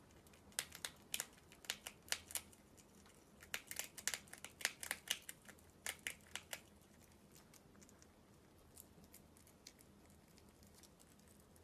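Prairie dog crunching food held in its paws: clusters of quick, sharp crunches that thin out to a few scattered ones after about seven seconds.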